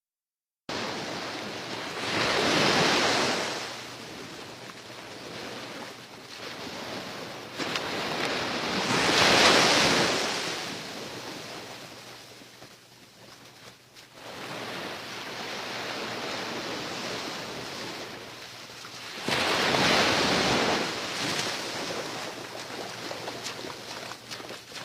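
Sea waves washing ashore, with three bigger waves breaking several seconds apart over a steady wash of surf.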